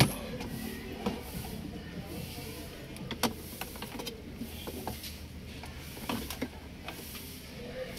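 Scattered light clicks and knocks as a metal-cased car stereo head unit and its plastic wiring-harness plugs are handled and fitted at the dashboard opening, over a low steady hum.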